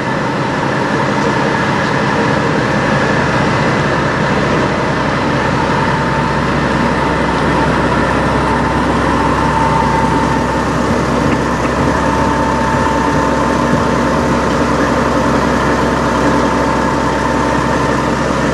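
Heavy diesel semi-truck engine idling steadily, with a thin high whine that comes and goes over it in the second half.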